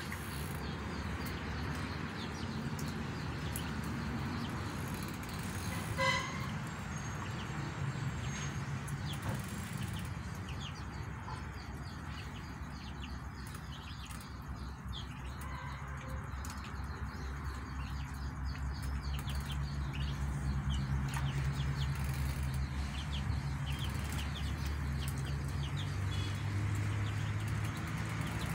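Ducklings peeping, many short high peeps, busiest in the second half, as they feed and drink from dishes. One louder call stands out about six seconds in, over a steady low rumble.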